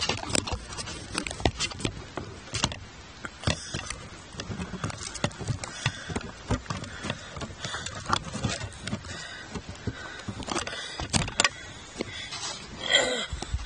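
Close handling noise: irregular rustling with many small clicks and knocks, as of clothing and gear rubbing against the microphone. A short pitched sound, the loudest moment, comes near the end.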